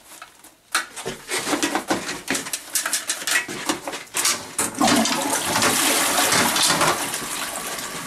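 Splashing strokes in the water of a toilet bowl blocked with paper, then the toilet flushing, with water rushing through the bowl from about five seconds in.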